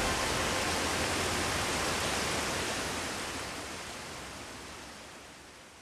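A steady hiss of rushing water that fades out over the last few seconds.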